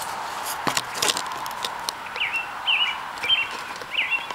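A songbird chirping a short, quick call about five times in the second half, over steady outdoor hiss. About a second in come a few knocks and clicks from the camera being set down.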